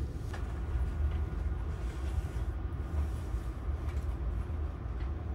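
Steady low rumble of the Saphir Odoriko express, a JR East E261 series train, heard from inside the premium green car.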